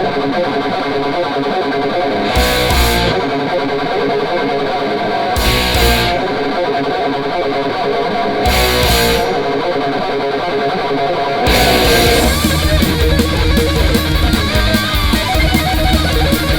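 Thrash metal instrumental passage: electric guitar riffing, punctuated by a drum-and-cymbal hit about every three seconds. The full band with fast drumming comes in about two-thirds of the way through.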